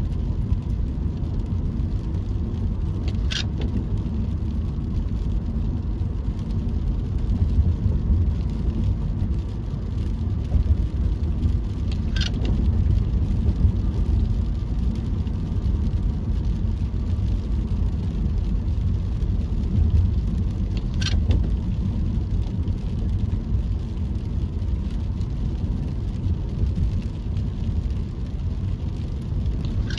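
Car driving on a road, a steady low rumble of engine and tyre noise. A short high-pitched sound recurs about every nine seconds.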